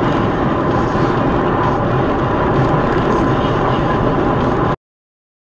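Steady vehicle noise picked up by a dashcam: a loud, even rumble and hiss with a faint steady hum, cutting off suddenly near the end.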